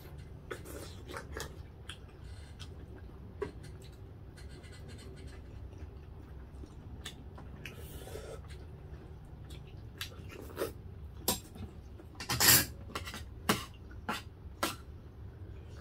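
Forks scraping and clicking on ceramic plates during a meal. The clicks are scattered at first, then come as a run of louder clinks and knocks in the second half, the loudest about two-thirds of the way through. A steady low hum runs underneath.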